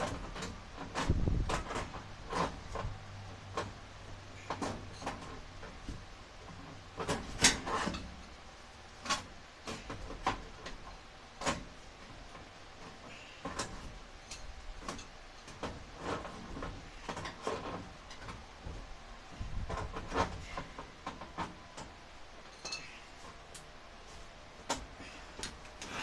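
Irregular clicks, knocks and scrapes of hand work behind a clothes dryer at its metal exhaust vent pipe. A sharp knock comes about seven seconds in, and there are a couple of low thumps.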